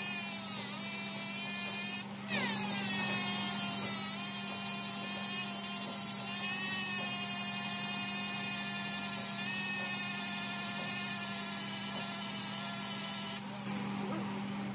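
Electric straight die grinder with a mounted abrasive stone whining at high speed as it grinds a steel shaft turning in a lathe, over the lathe's steady hum. The whine dips briefly about two seconds in, then settles back to its pitch; it cuts off near the end, leaving the lower hum.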